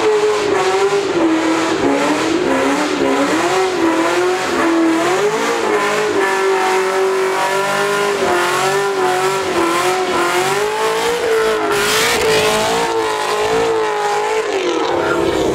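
Chevrolet Camaro engine held at high revs during a burnout. The note wavers up and down over the tyre noise as the rear tyres spin and squeal.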